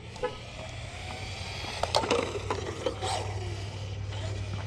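Radio-controlled Traxxas Ford Mustang GT driving on a concrete path: its electric motor running steadily and its small tyres rolling and scraping on the pavement, with a cluster of sharp ticks about two seconds in.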